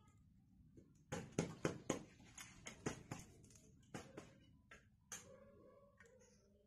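Steel spoon clinking and scraping against a steel pot and other steel utensils: a quick run of sharp clinks from about a second in, then a few scattered taps.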